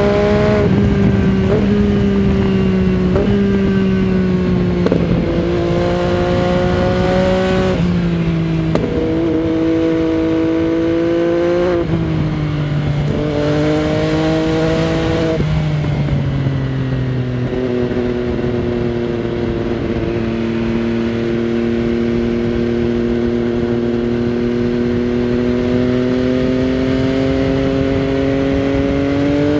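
MV Agusta Dragster 800 RR's 800 cc three-cylinder engine through a Fresco Trio Corse exhaust with its dB-killer fitted, heard under way from the rider's seat. Its revs rise and fall through several gear changes in the first half. After that it runs steadily, with the revs slowly climbing.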